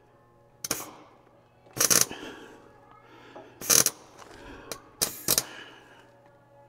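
Electric welder striking four short tack welds, each a brief crackling burst of a fraction of a second. The welds are small zaps on rusted-off nuts behind a truck dash, tacking a heater valve in place.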